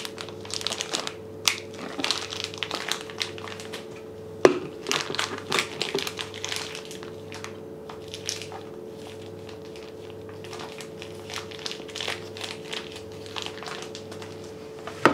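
Plastic piping bag full of meringue mixture crinkling and rustling as it is clipped shut and squeezed, with a sharp click about four and a half seconds in.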